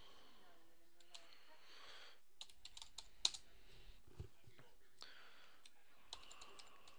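Typing on a computer keyboard: a quick run of key clicks about two and a half seconds in, with one much louder keystroke, then a dull thump a second later.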